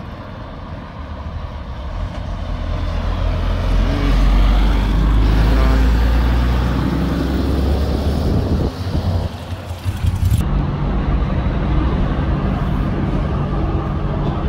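Lorry traffic: a heavy vehicle's deep engine rumble builds up and passes close, loudest around four to seven seconds in. About ten seconds in the sound changes abruptly to a steadier low engine hum.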